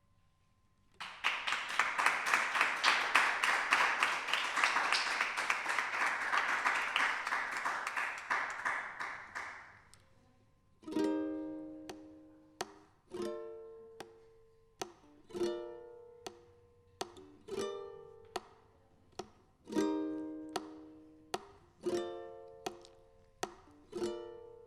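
Audience applauding for about nine seconds, then dying away. A plucked string instrument then starts the next song with slow chords, each left to ring.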